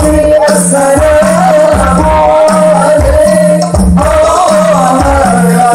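A man singing a devotional Maulid chant (sholawat) through a microphone and PA system, the melody wavering and ornamented, over a steady percussion beat of low drum hits about twice a second.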